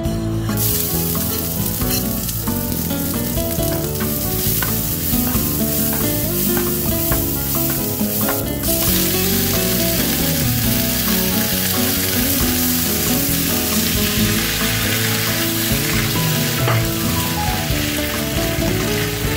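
Hot oil sizzling in a nonstick wok. After a brief break a little past eight seconds in, it comes back as a fuller, louder sizzle once Chinese kale leaves are in the pan. The leaves are then stir-fried, with a slotted spatula working them around the pan.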